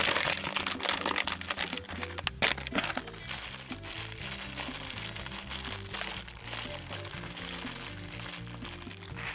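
A foil wrapper and a small clear plastic bag crinkling and crackling as hands open them, loudest in the first couple of seconds. Background music plays underneath.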